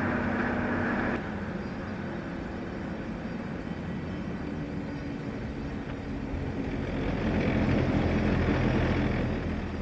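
Steady road and engine drone heard inside a vehicle cab at highway speed, mostly tyre noise with a low engine hum. A higher hum drops away about a second in, and the low rumble grows louder for a couple of seconds near the end.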